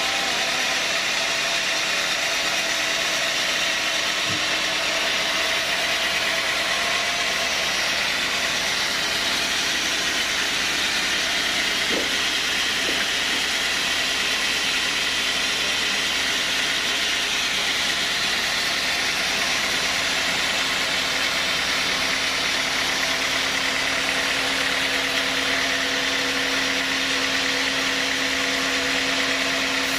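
Sawmill saw machinery running steadily: an even, dense whirring noise with a steady low hum underneath, a little stronger in the low hum over the last third.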